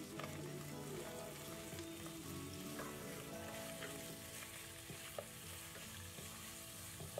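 Beef mince sizzling in hot oil in a nonstick pot while a wooden spatula stirs it, with background music underneath.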